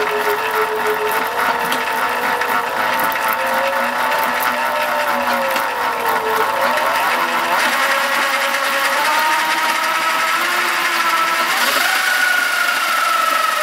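Electric motorcycle motor driving the lifted rear wheel through its chain: a whine whose pitch rises and falls with the throttle, over chain rattle. Near the end the whine climbs higher as the throttle is opened further.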